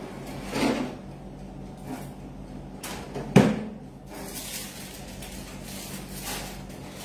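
A single sharp knock about three and a half seconds in, with a softer bump about half a second in, over a steady low hum.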